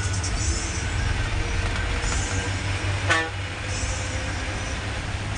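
Ashok Leyland bus running at road speed, heard from inside the cab as a steady low engine and road rumble. A short horn toot sounds a little after three seconds in.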